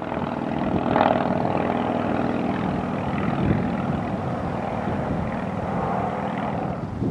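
Yamaha FZ-07's parallel-twin engine running steadily while riding, with wind rushing over the microphone.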